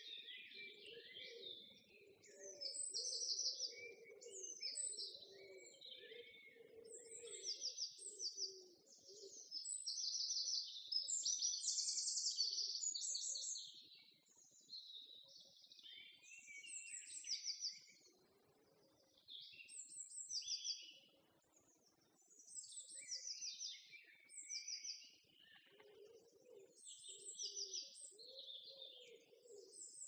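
A chorus of small birds chirping and twittering in quick, high, overlapping phrases. A lower-pitched call runs underneath for the first nine seconds or so and comes back near the end.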